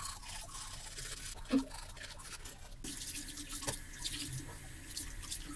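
Manual toothbrush scrubbing teeth in quick back-and-forth strokes, with a single knock about a second and a half in.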